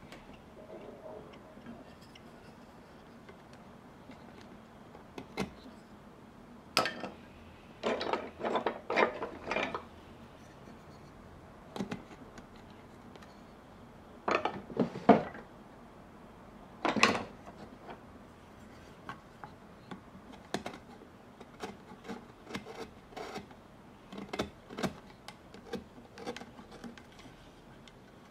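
A wooden skull being carved by hand: short scraping and cutting strokes of a carving tool on the wood, coming in clusters. The loudest strokes fall about halfway through, followed by a run of lighter, quicker strokes near the end.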